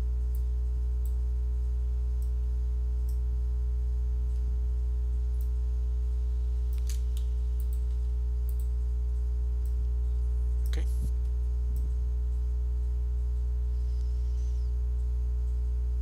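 Steady electrical mains hum with a stack of evenly spaced overtones, with a computer mouse clicking now and then and a quick pair of clicks about eleven seconds in.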